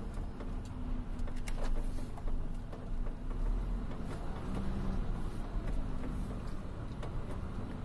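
Steady low engine rumble, with a hum that fades in and out and a few faint ticks in the first two seconds.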